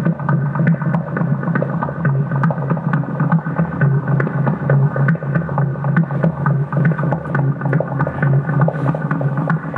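A loud, steady low drone with a dense layer of sustained tones above it, crackling with frequent sharp clicks throughout: an experimental ambient soundscape.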